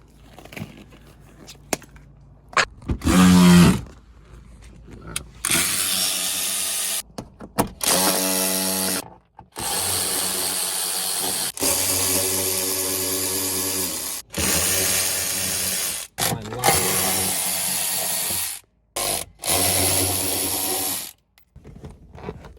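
Handheld power tool run in repeated bursts of a few seconds each, starting and stopping abruptly, with a rising whine as it spins up near the start.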